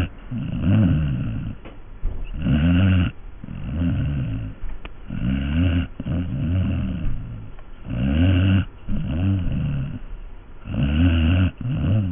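A sleeping pet snoring in a steady rhythm, about four breaths in all, roughly one every three seconds. Each breath is a loud rasping snore followed by a softer, wavering one.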